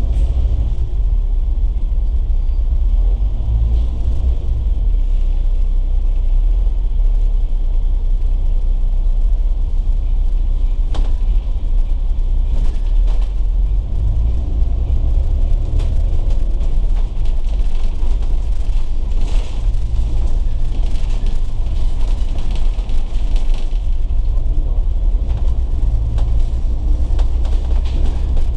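Volvo B9TL double-decker bus under way, a steady low engine and road rumble whose engine note swells and eases several times.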